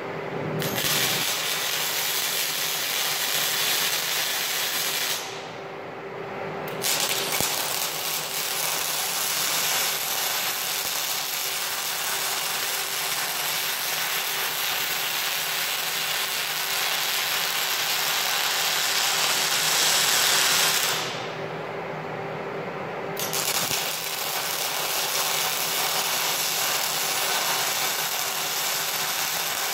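MIG welding arc crackling as a bead is laid on a steel I-beam, in three runs with two short breaks, about five seconds in and about 21 seconds in. A steady low hum runs underneath.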